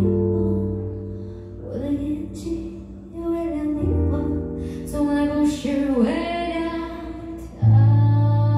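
A woman singing a slow, gentle song to an electric keyboard (Nord Electro 6), which holds sustained chords and strikes a new one roughly every four seconds.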